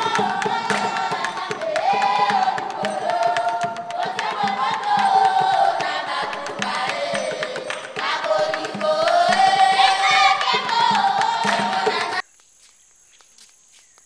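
Choir of girls and young women singing together over a steady low beat. The singing cuts off suddenly near the end.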